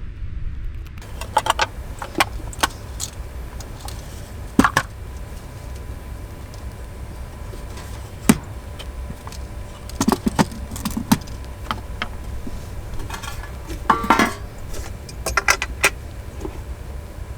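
Scattered clicks and clinks of small hard objects being handled, over a steady low rumble.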